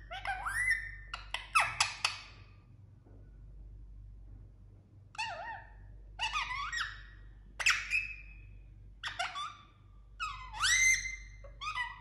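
Indian ringneck parakeet making squeaky chirps and whistles in short flurries of quickly rising and falling notes, with a gap of about three seconds after the first flurry.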